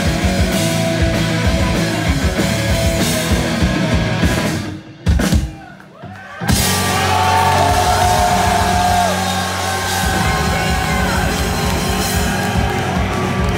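Live heavy rock band heard close from the stage: distorted electric guitar through a 5150 amp, bass guitar and drum kit. About five seconds in the band cuts out almost completely for a second and a half, with one short hit in the gap, then comes back in full. A high sliding melody line rides over it after that.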